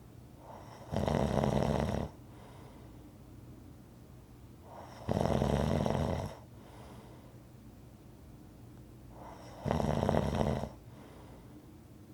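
Rhythmic snoring: three loud snores about four and a half seconds apart, each lasting about a second and led in by a softer breath, with quiet breathing between.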